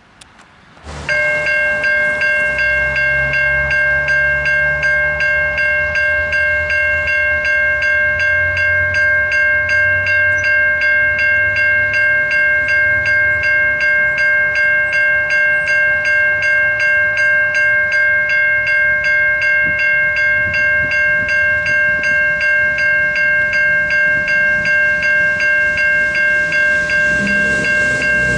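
Safetran Type 3 electronic level-crossing bells start about a second in and then ring continuously, a bright ringing tone struck over and over at a rapid, even beat. They are the crossing's warning that a train is approaching.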